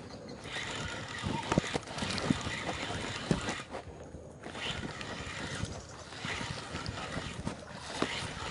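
Light splashing and sloshing of water as a bait is worked on the surface with a long fishing pole, with scattered knocks of handling noise.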